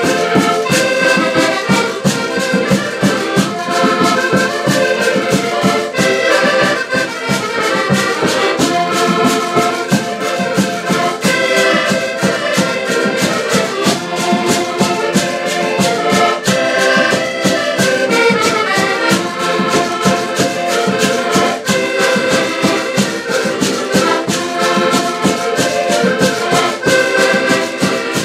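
Several diatonic button accordions (Portuguese concertinas) playing a folk tune together, with dense sustained chords over a quick, steady beat.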